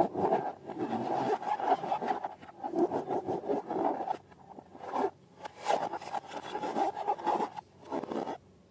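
Irregular rubbing and scraping as balloons and slime are handled and worked, coming in uneven strokes with short breaks around the middle and stopping shortly before the end.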